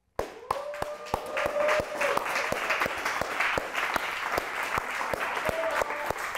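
A few people clapping and cheering, starting a moment in, with a held whoop early on and another voice near the end.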